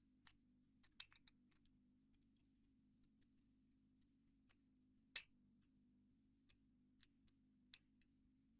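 Small irregular clicks and ticks of homemade lock picks working inside a Squire 660 padlock, with a louder click about a second in and another about five seconds in.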